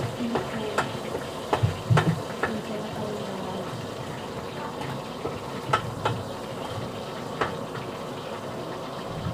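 Cooking utensil clicking and scraping against a pan of frying food, in sharp irregular clicks over a steady hiss.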